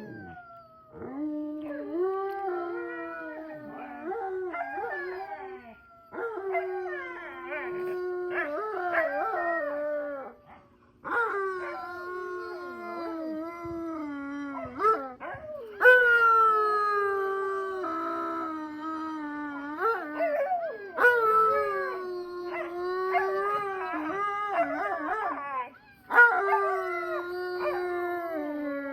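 Several huskies howling together in chorus: overlapping long howls that hold and glide in pitch, coming in waves a few seconds long with brief pauses between.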